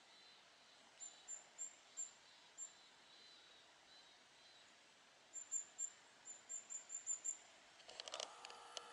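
Very high, thin call notes of a kinglet (Regulus): a few spaced notes, then a quick run of them about five seconds in. A brief clatter of clicks comes near the end.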